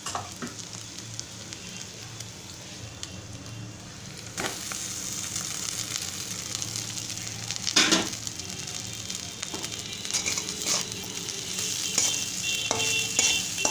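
Rice, vegetables and egg sizzling in hot oil and ghee in a metal kadai while the rice is stirred in, with a few sharp scrapes and knocks of a utensil against the pan. The sizzle grows louder about four seconds in, and the loudest scrape comes about halfway through.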